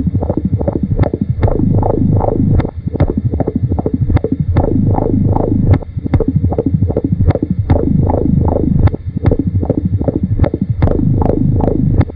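Experimental electronic tape music: a rapid train of sharp clicks, each trailing a tone that drops in pitch, about three a second, with brief breaks every few seconds.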